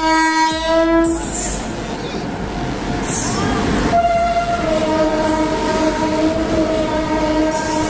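Indian Railways locomotive horn blowing as a train pulls into the platform: a short blast at the start, then a longer one from about halfway, over the rumble of the moving train.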